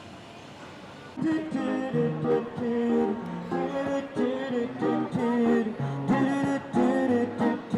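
Background music with a guitar, starting suddenly about a second in over faint steady background noise.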